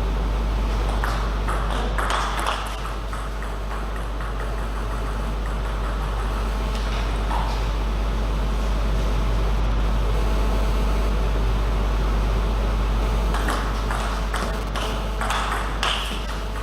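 Table tennis ball clicking off rackets and table in short runs of hits near the start and again near the end, over a steady low hum.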